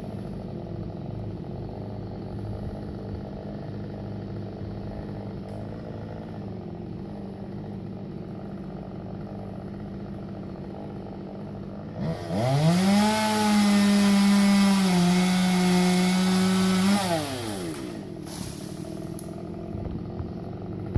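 Two-stroke chainsaw idling, then revved to full throttle about twelve seconds in and held there for about five seconds before dropping back to idle.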